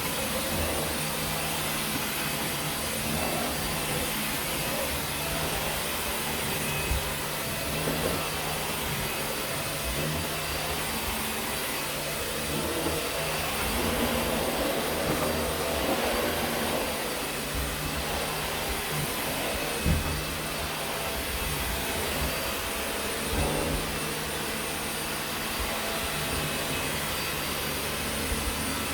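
Dyson vacuum cleaner running steadily over carpet, a constant motor whine and suction rush, with a few brief knocks as the head moves.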